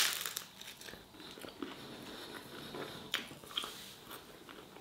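A person biting into a piece of roasted garlic flatbread, with a sharp crunch at the bite right at the start, then chewing it.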